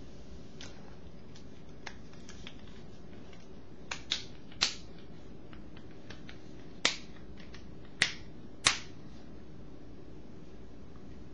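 Sharp plastic clicks and snaps from a Nokia 6210 Navigator's back cover being pried off and the handset handled. A few faint ticks come first, then about half a dozen crisp snaps between about four and nine seconds in.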